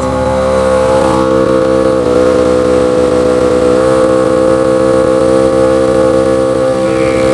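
SmittyBilt 12-volt portable air compressor running steadily under load as it inflates a 37-inch off-road tire: a loud, even motor-and-pump drone with a steady pitched hum.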